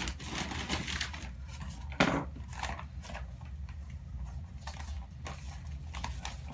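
Packing paper rustling and crinkling while potted plants are handled and unwrapped, with scattered small clicks and one sharp knock about two seconds in, over a steady low hum.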